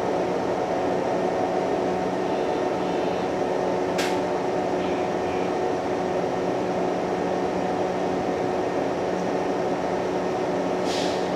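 Steady mechanical hum with a low even tone. A sharp click comes about four seconds in, and a short hiss near the end.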